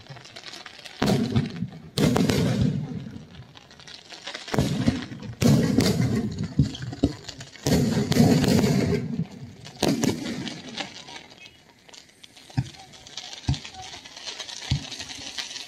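Aerial fireworks bursting: a series of booms, each trailing off into a crackling rumble, about six in the first ten seconds, then a few short pops near the end.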